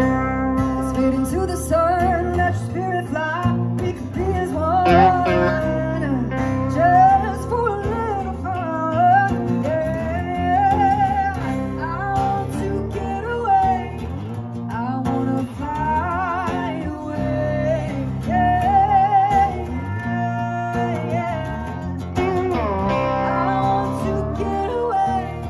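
Lap steel guitar playing a sliding solo melody with wavering vibrato over a strummed acoustic guitar.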